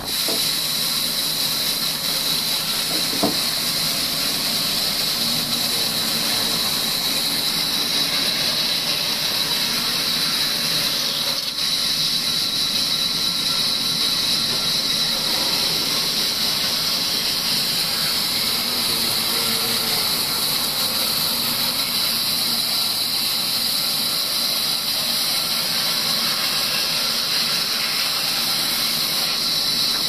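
Large band saw ripping an old timber beam lengthwise: a steady, unbroken high hiss of the blade cutting through the wood.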